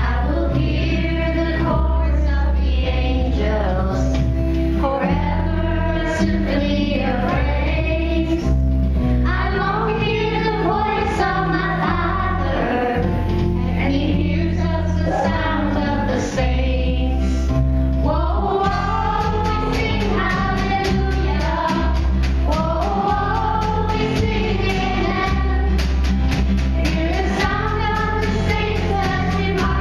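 Choir singing a song over instrumental accompaniment, with long held low bass notes underneath.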